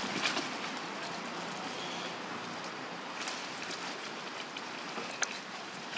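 Steady outdoor hiss with a few brief rustles, and one sharp click about five seconds in.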